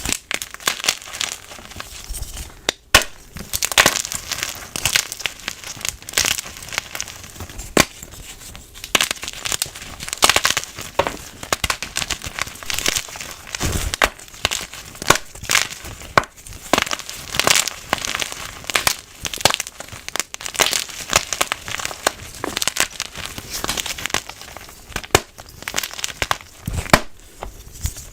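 Blocks of white gym chalk being crushed and crumbled, a dense, continuous run of crisp crunches and crackles.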